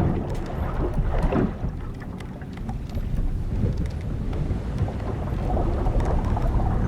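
Sound of an old wooden sailing ship at sea: hull timbers and ropes creaking over a steady low rumble of wind and waves.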